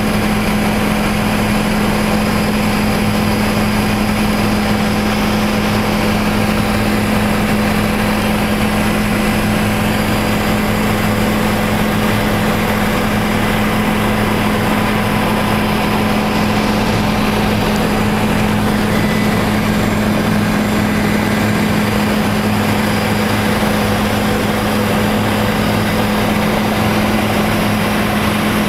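Tour helicopter in steady flight, heard from inside the cabin: a loud, unchanging drone of engine and rotor with a strong low hum.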